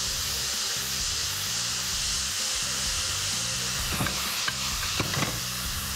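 Chicken, garlic and broccoli stir-frying in a hot wok: a steady, loud sizzle as soy sauce goes into the pan. In the second half, a few light clicks of metal tongs turning the food against the wok.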